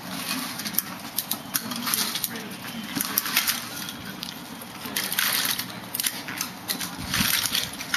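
Folding aluminium walker with wheels and tennis-ball feet scraping along concrete about every two seconds as it is pushed forward step by step, with small clicks and rattles from its frame.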